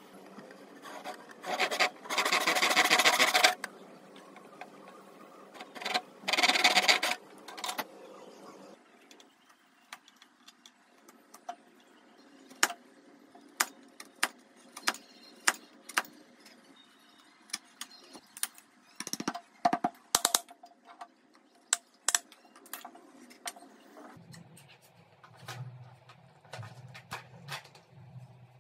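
Hand woodworking on teak: two loud rasping stretches of a couple of seconds each, then a long string of sharp, separate clicks as a chisel pares chips from a wooden block.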